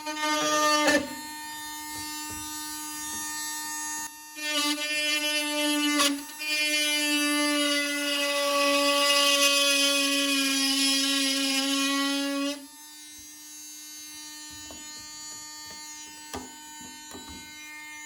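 Pistol-grip Dremel-type rotary tool with a Rotozip-type bit, running with a steady whine and cutting through Robart-style plastic pin hinges. The sound grows louder and harsher while the bit bites into the plastic, briefly at the start and around four to six seconds in, then longest from about six to twelve seconds in. After that it eases back to a lighter, steady whine.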